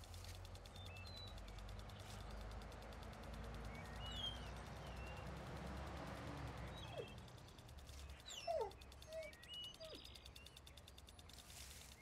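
A small dog whimpering: a few short whines that slide down in pitch, about seven to ten seconds in. Faint high chirps run throughout, and a low rumbling noise swells and fades in the first half.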